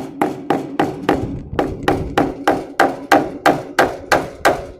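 A hammer driving fasteners into the wooden frame with quick, even blows, about four a second, each with a short ring.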